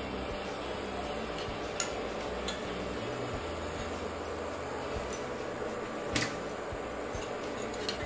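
Bajaj ICX Pearl induction cooktop running, its cooling fan giving a steady whir, with three light clicks of a steel spoon against the stainless steel pot.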